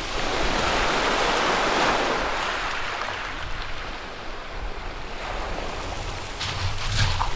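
Small waves washing up over a shingle beach, the surge swelling over the first two seconds and then slowly fading as the water draws back.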